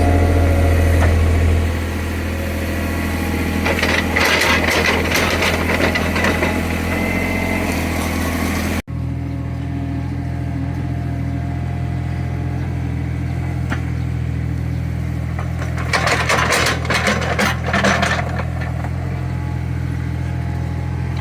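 Small Caterpillar excavator's diesel engine running steadily, with two spells of clattering and scraping from the bucket digging into soil, one a few seconds in and one near the end.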